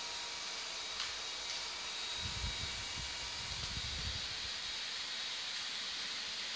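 Steady hiss with a faint high-pitched whine. A low rumble comes in and out for about two seconds in the middle.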